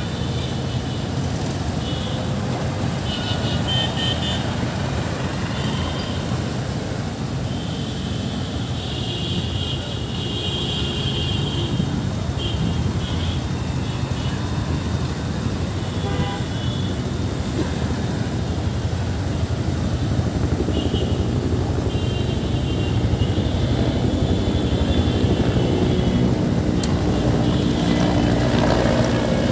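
Road traffic at a busy city intersection: a steady mix of car and motorcycle engines passing, with intermittent higher-pitched sounds over it. The noise grows louder over the last third.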